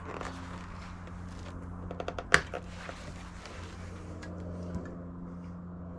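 Sharp plastic clicks and knocks from handling a plastic gas can and its pour spout as it is tipped toward a chainsaw's fuel port, a quick cluster of them about two seconds in, over a steady low hum.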